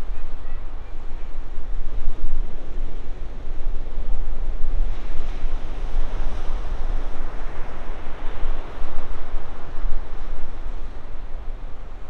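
Ocean waves breaking in a steady wash of surf, with wind buffeting the microphone in a deep, gusting rumble.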